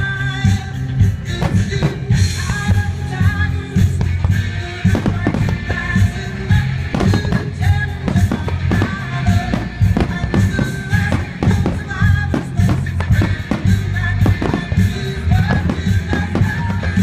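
Loud music with a strong, steady bass beat, with fireworks bursts popping through it.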